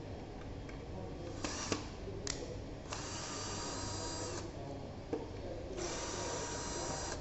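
A small handheld power tool's motor whirring in bursts: two brief spurts, then two longer runs of about a second and a half each.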